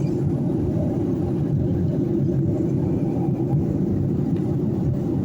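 Airliner cabin noise in flight: a steady low rumble of the engines and the airflow, heard from inside the passenger cabin.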